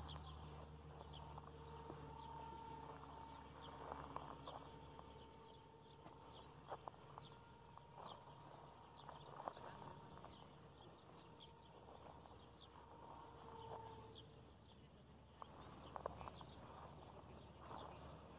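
Near silence: faint outdoor ambience with scattered faint bird chirps and a few soft clicks.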